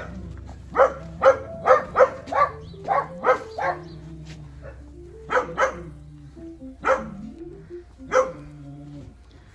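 A dog barking, about a dozen short sharp barks in quick runs, over background music with a simple stepping melody.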